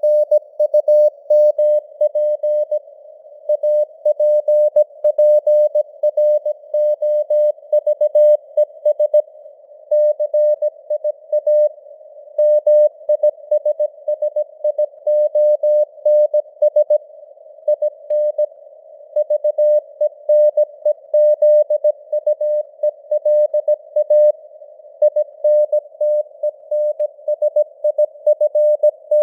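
Morse code (CW) sent at 17 words per minute: a single mid-pitched beep keyed on and off in rapid dots and dashes, over a band of simulated radio hiss with slowly varying signal strength.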